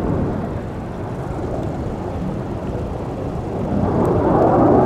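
Jet noise of BAE Hawk jet trainers in flight: a steady, rushing rumble that swells louder near the end.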